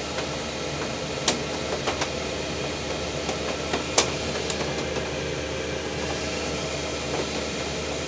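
Diesel air heater running steadily on filtered waste engine oil: an even rush of air with a low hum. A few sharp clicks stand out, the loudest about four seconds in.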